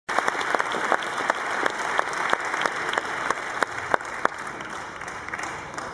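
Audience applauding, with many individual hand claps; the applause gradually dies down.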